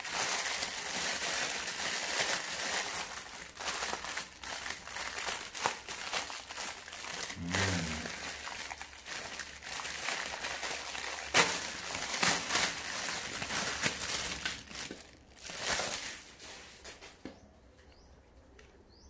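Clear plastic packaging bag crinkling and crackling as it is handled and pulled off a plush fish toy. The noise dies down near the end.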